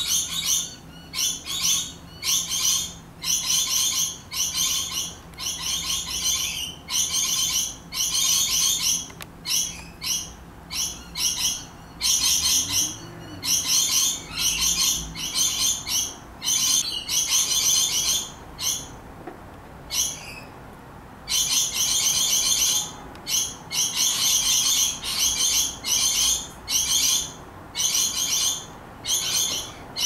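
Rainbow lorikeets yelping: a long run of short, high-pitched calls one after another, with a pause of a second or two about two-thirds of the way through.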